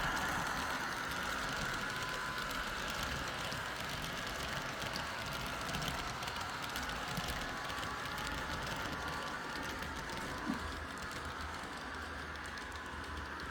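H0 model train running on the layout: the wheels of a Märklin V 200 diesel and its coaches rattle and tick rapidly over the track joints and points, with a motor whine that fades away early on as the train draws off. One slightly louder click comes about ten seconds in.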